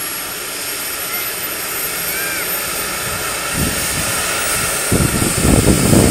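Ambulance helicopter's turbine running on the ground before take-off: a steady high whine and hiss. From about three and a half seconds in, heavy low gusty rumbles come and go, growing louder near the end.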